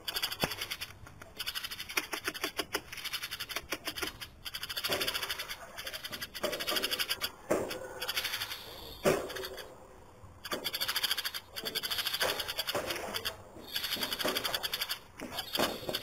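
Eurasian tree sparrow singing continuously: a fast, rattling chatter of rapid chirps, with a few louder sweeping notes now and then.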